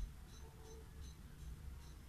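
Quiet room tone: a faint low rumble with faint, short high-pitched chirps repeating a few times a second.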